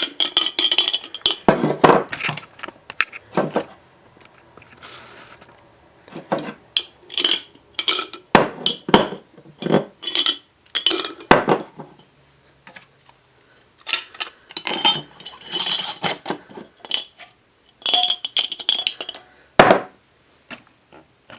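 Plastic Rubik's Cube pieces clicking and knocking against the inside of a glass jar as the cube is handled in it: irregular clinks and knocks with a few short pauses.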